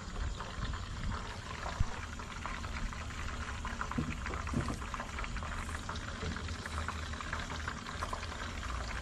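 Cooking oil sizzling with a steady fine crackle in a frying pan as it heats up for frying.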